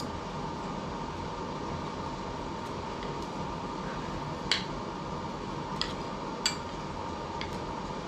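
A few short, sharp clicks of cutlery against a plate or cup during a meal, four in all, the first and loudest about halfway through, over a steady background hum.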